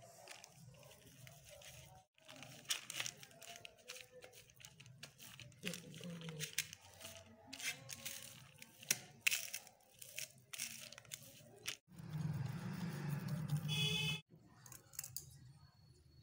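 A thin sheet crinkles and rustles in quick, irregular crackles under hands kneading a moist grated coconut mixture on it. About twelve seconds in a louder, steadier noise runs for about two seconds and cuts off suddenly.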